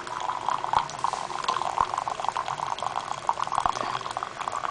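Hot water poured in a steady thin stream from a jug into a ceramic mug, splashing as the mug fills.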